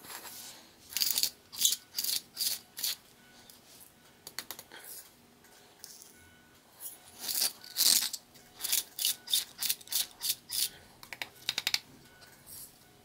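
Clear plastic salt grinder with a ceramic rotor being twisted, crunching salt crystals in short gritty strokes: a few in the first seconds, then a longer, quicker run in the second half.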